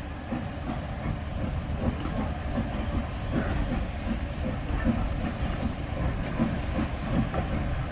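Steam locomotive hauling coaches approaching along the line, a steady low rumble of the train on the rails.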